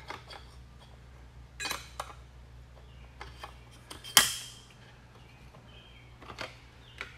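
Metal diffusers and shims of a multistage booster pump's impeller stack clicking and clinking as they are seated and pressed down on the shaft. A few separate light metallic clicks, the loudest about four seconds in with a short ring.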